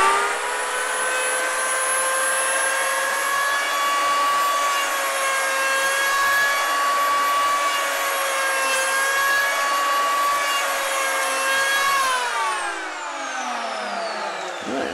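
Handheld electric plane comes up to speed, runs with a steady high whine while planing a block of mild cheddar into fine shavings, then is switched off about twelve seconds in and winds down with a falling whine.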